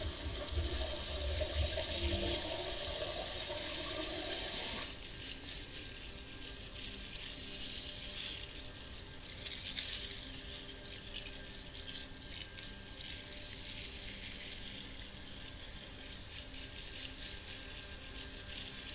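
Live electronic sound-art piece built from countryside field recordings: a dense texture of fine crackles and rattles over faint steady tones. About five seconds in, a lower rumbling layer cuts out, leaving the thinner crackling texture.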